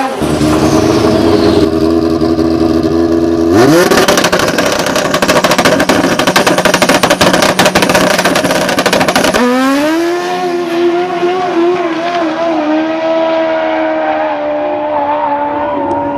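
Turbocharged drag-racing snowmobile engine holding steady revs, then revving sharply about three and a half seconds in and running at full throttle with a loud, harsh rattle for about six seconds. Near ten seconds in the sound changes abruptly to a steadier engine note that wavers slightly.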